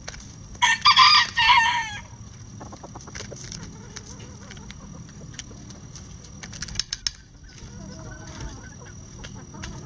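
A bantam rooster crows once, close by, about a second in: a short crow in two parts that drops in pitch at the end. Later come a few sharp taps of chickens pecking at a hanging cabbage, and soft clucking near the end.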